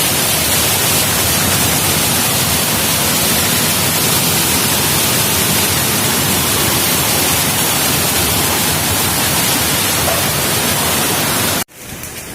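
Storm wind blowing hard with heavy rain, a loud steady roar of noise that cuts off abruptly near the end.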